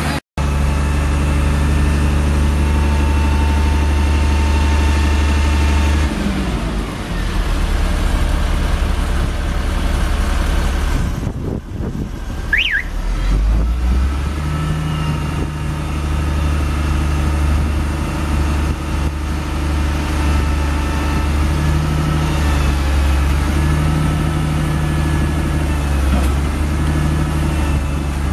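Caterpillar C7 inline-six turbo diesel of a Freightliner M2 running steadily while it powers the truck's hydraulic boom, its note shifting a few times, with a dip around twelve seconds in. A short high chirp sounds about twelve seconds in.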